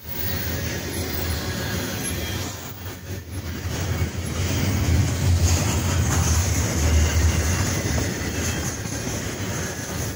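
Double-stack intermodal container freight train rolling past: a loud, steady rumble of its wheels on the rails, growing louder about four seconds in.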